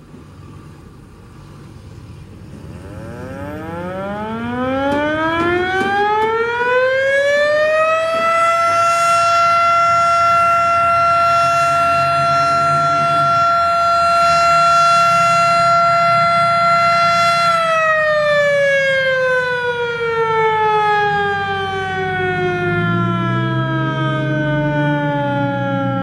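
Federal Signal 2001-SRN outdoor warning siren sounding as a noon whistle: it winds up over about five seconds to a steady high tone, holds for about ten seconds, then winds down with a slowly falling pitch.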